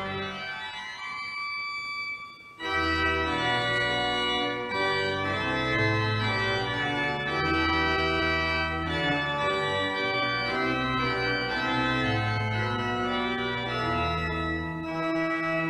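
Pipe organ playing sustained full chords over a deep pedal bass. About two and a half seconds in, the bass returns after a brief thinning, and the chords then move on about once a second.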